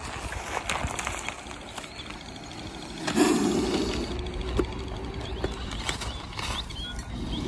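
Small clicks and rustles of a clear plastic jar being handled and its lid twisted off, with faint ratchet-like ticking. A steady rushing noise sets in about three seconds in.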